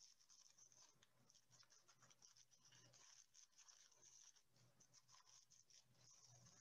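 Faint crinkling and rustling of thin white tissue paper as fingers pull apart and fluff the petals of a paper flower, in small irregular scratches.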